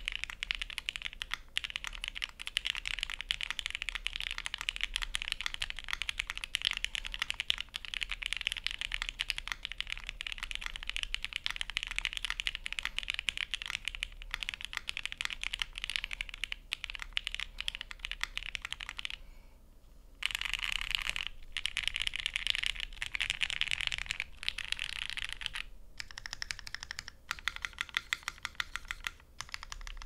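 Fast two-handed typing on a Zeta Hera mechanical keyboard with lubed Thicthock Marshmallow switches, an FR4 half-plate and GMK Bread ABS keycaps: a dense, even stream of keystrokes. The typing stops for about a second some two-thirds of the way through, then comes back in short runs with brief gaps.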